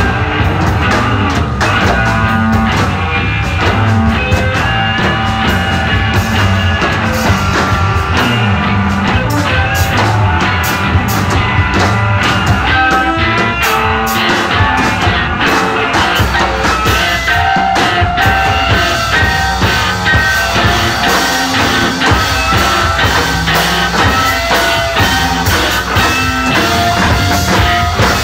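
Live noise-rock band playing loud and dense: two electric guitars holding and sliding through sustained, distorted notes over two drum kits pounding steadily without a break.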